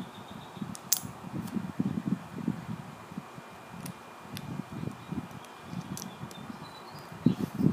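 Small plastic Lego pieces handled and pressed together: a few sharp, light clicks over an uneven low rumble.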